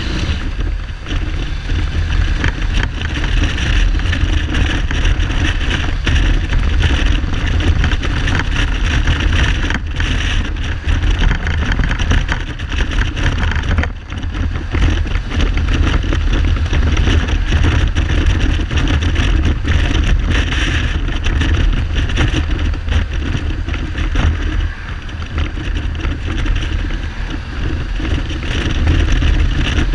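Kawasaki Z1300 inline-six motorcycle engine running on the road, under heavy wind buffeting on the helmet-side microphone, with helmet rattles. The engine is not firing on all cylinders, which the owner puts down to a carburettor or spark plug problem. The sound eases briefly a couple of times, about 14 and 25 seconds in.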